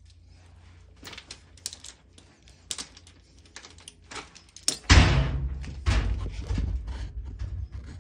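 Light metallic clicks and taps as a copper-pipe flaring bar is handled and fitted onto the pipe, then a loud thump about five seconds in followed by a few seconds of low rumbling and knocking.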